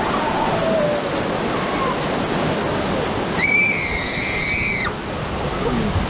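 Steady rushing of whitewater around a round river-rapids raft. About halfway through, a high-pitched held tone sounds for about a second and a half.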